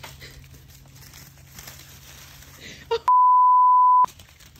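A single steady beep lasting about a second, about three seconds in, with all other sound cut out beneath it: a censor bleep laid over the soundtrack. Before it there is only faint rustling and a low hum.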